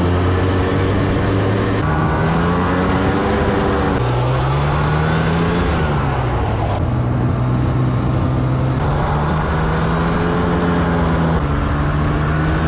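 Snowmobile engine running under way, loud and steady, its pitch rising and falling as the throttle changes. The sound jumps abruptly several times.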